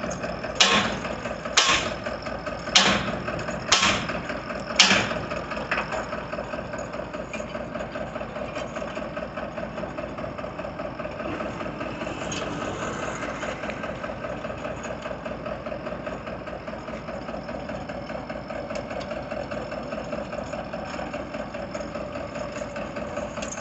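Diesel engine of a tractor-mounted borewell rig running steadily at idle. Over the first six seconds there are sharp metal-on-metal strikes on the rig's steel pipe work, about one a second: five loud, then a fainter sixth.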